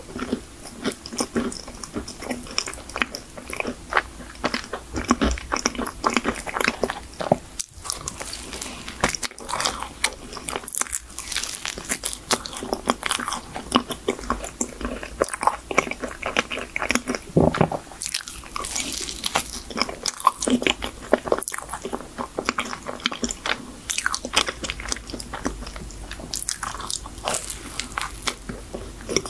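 A person biting into and chewing a chocolate-coated choux cream puff: the chocolate shell crunches and cracks between the teeth, with many quick crackles and wet chewing sounds throughout.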